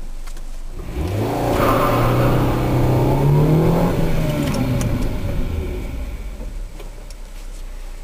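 Car engine heard from inside the cabin as the car accelerates: its note rises steadily for about three seconds, then levels off and fades as the driver eases off.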